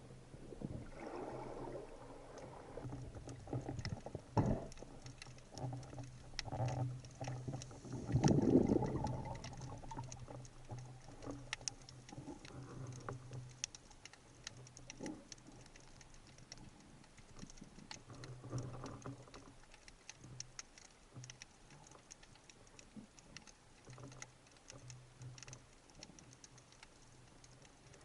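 Underwater ambience during a spearfishing dive: a constant crackle of small sharp clicks over a low steady hum, with a few louder swishes, the loudest about eight seconds in.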